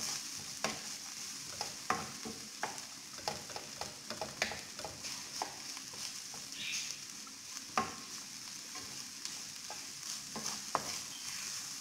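Minced mutton and chopped onion sizzling in a nonstick frying pan while a wooden spatula stirs them, with a steady frying hiss and frequent irregular clicks and knocks of the spatula against the pan.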